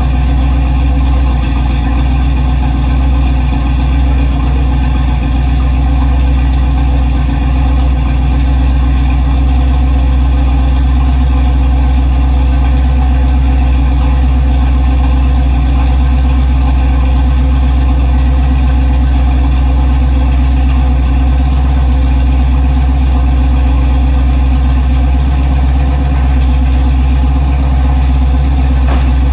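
Chevrolet 350 small-block V8 in a squarebody K10 pickup idling steadily.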